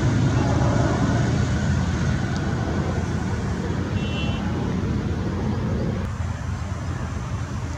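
Jet roar from a JF-17 Thunder's single Klimov RD-93 turbofan as it flies past, a steady low rumble that slowly fades and drops further about six seconds in. A short high toot sounds about four seconds in.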